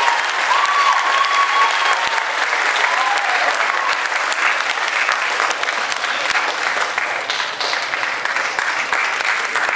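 Audience applauding steadily after a choir performance, with a few voices calling out over the clapping in the first few seconds.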